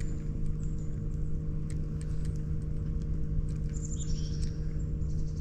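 A small electric motor humming steadily, with scattered light clicks and a short high chirping bird call about four seconds in.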